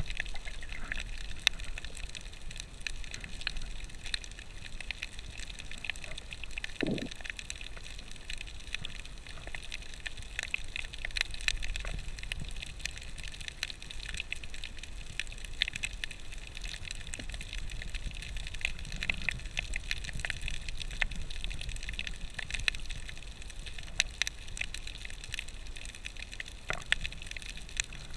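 Underwater sound through a camera's waterproof housing: a steady low rumble of moving water with dense, irregular crackling clicks throughout, and one duller knock about seven seconds in.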